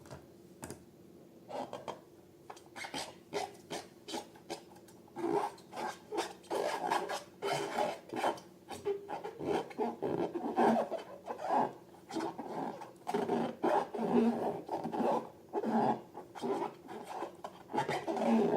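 Hands kneading and squeezing slime, making a dense, irregular run of sticky squelches and crackles. They start faint and grow louder about five seconds in.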